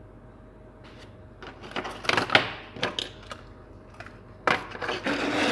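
Hands handling wooden frog lures and their packaging: scattered clicks and knocks with short bursts of rustling.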